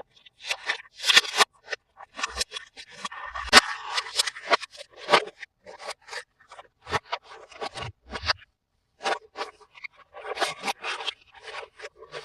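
Close-miked handling of toy packaging and small plastic toys: a run of quick taps, scrapes and rustles with short pauses, denser scraping a few seconds in.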